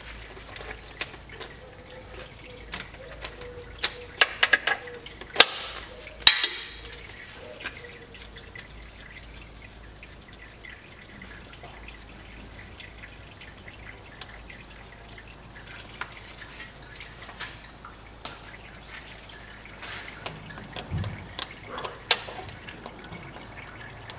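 Used CVT fluid dripping and trickling from the transmission's drain hole into a drain pan. There is a cluster of sharp metallic clicks and knocks about four to six seconds in and a few more near the end, from a 10 mm socket wrench on the heat-exchanger filter bolts.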